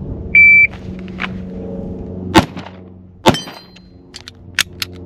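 Shot-timer start beep, then two handgun shots about a second apart, followed by a few fainter sharp cracks.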